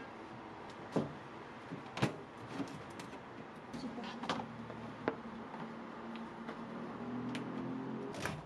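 Scattered sharp knocks and clacks of a cut kabocha squash being handled and set down on a plate, with a faint low hum growing slightly louder in the second half.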